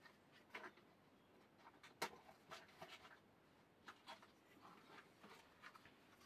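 Faint rummaging: scattered light clicks, knocks and rustles of small objects being moved about by hand, the sharpest knock about two seconds in.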